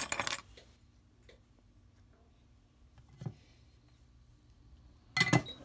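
Quiet workbench with a faint steady hum, a couple of faint clicks from small metal tools, and a short sharp clatter about five seconds in as a tool is handled.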